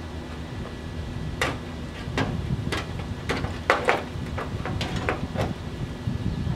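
Hand snips cutting into sheet-steel panel: a string of sharp, irregular metal clicks and snaps, beginning about a second and a half in.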